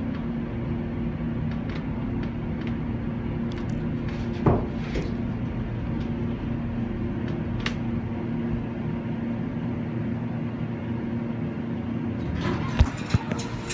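Atlanta Oiltronic hydraulic elevator car descending, a steady hum with a low tone. The hum stops about twelve seconds in, and a few knocks follow as the car comes to a stop.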